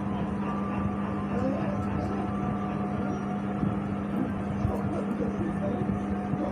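Steady low hum over constant background noise, with faint voices far off.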